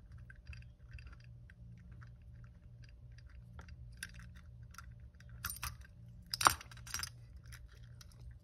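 Small metal clicks and light scraping from hand-disassembling the choke assembly of an SU Rivera Eliminator II motorcycle carburetor, with a few sharper clicks about two-thirds of the way through, the loudest a single snap. A faint steady low hum underneath.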